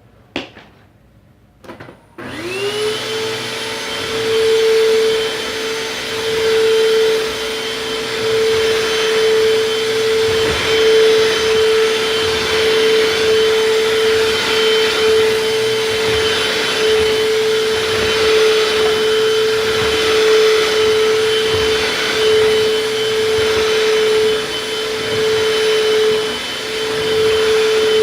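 Eureka Superlight vacuum cleaner switched on with a click about two seconds in, its motor whine rising quickly and settling to a steady pitch. It keeps running as it is pushed back and forth over a rug, the loudness swelling and dipping with each stroke.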